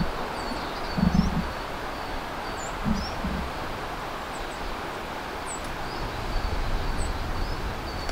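Small woodland birds chirping with many short, high calls over a steady rustle of leaves in the wind. A few low thumps come in the first three and a half seconds.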